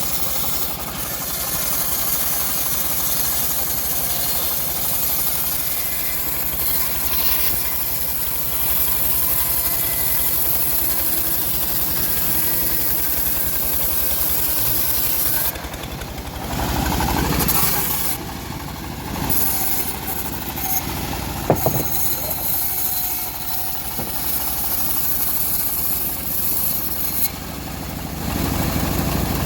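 Homemade engine-driven bandsaw mill running steadily while ripping a hard teak log, with louder surges about halfway through and again near the end.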